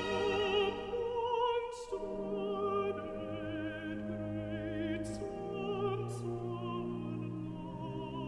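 Alto soloist singing a slow Baroque oratorio lament with wide vibrato on long held notes, over sustained string accompaniment from a small orchestra.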